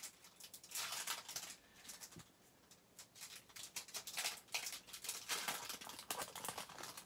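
Foil wrapper of a Topps Opening Day baseball card pack crinkling and tearing by hand in several short bursts as the pack is peeled open.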